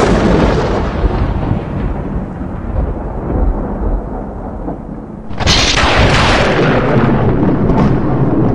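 Thunder sound effect: a rolling rumble dying away from a crack just before, then a second sharp thunderclap about five seconds in that rumbles on.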